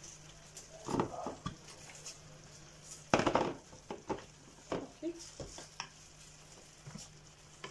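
Handfuls of sliced raw onion being dropped and spread over chicken in an earthenware tagine, with hands reaching into a plastic bowl for more: a string of soft rustles and light knocks, the loudest about three seconds in.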